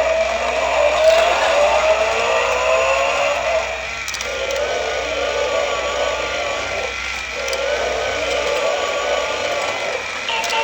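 Electronic toy race-car engine sound effect: the revving pitch rises over the first few seconds, then settles into a steady wavering tone that dips briefly twice.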